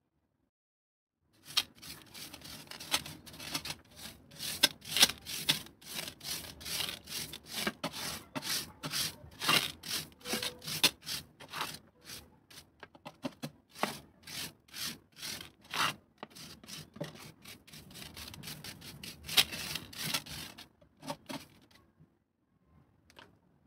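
Small aquarium gravel scraped and raked with a plastic scoop to level it, in quick repeated strokes of about two a second. The pebbles click and grind against each other and the glass. The scraping begins about a second and a half in and stops a couple of seconds before the end.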